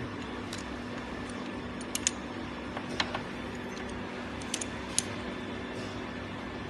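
Scattered small, sharp clicks and ticks, a few loud ones among them, over a steady faint hum.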